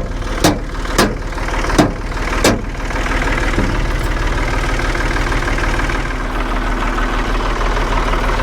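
Tractor engine idling steadily, with five sharp knocks in the first two and a half seconds as the forks are fitted onto the loader.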